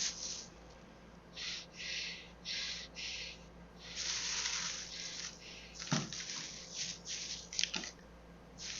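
Heavy breathing in short repeated breaths, then a big plastic bag rustling and crinkling as it is handed over and the money inside is checked, with a few sharper crackles.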